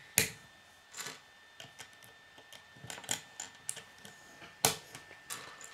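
Plastic K'nex rods and connectors clicking and snapping together as they are handled and pressed into place: a scattering of irregular clicks, with two louder snaps, one just after the start and one about four and a half seconds in.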